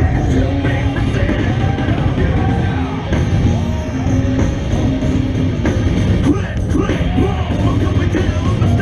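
Rock music with a singing voice over a heavy, steady beat.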